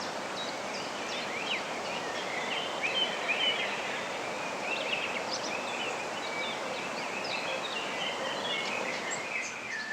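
Small birds chirping and twittering over a steady background hiss of outdoor ambience.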